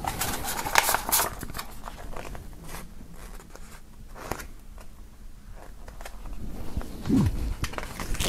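Rolled paper posters being unrolled and smoothed flat by hand on a wooden table: paper rustling and crinkling, with irregular light clicks and scrapes as the sheets are handled.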